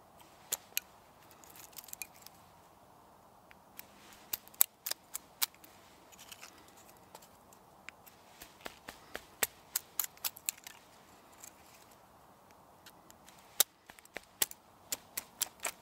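Fatwood sticks being split into thin matchsticks with a large knife on a wooden stump: irregular sharp cracks and clicks of the wood splitting, coming in clusters with short pauses between.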